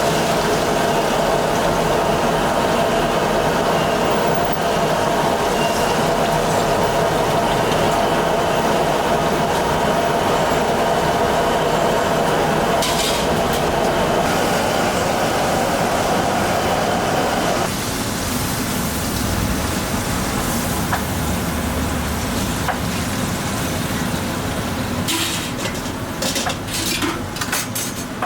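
Commercial kitchen cooking: a steady roar of kitchen equipment under food frying and being stirred. A little past halfway the roar drops off suddenly. Near the end come a run of sharp clinks and knocks of utensils and pans.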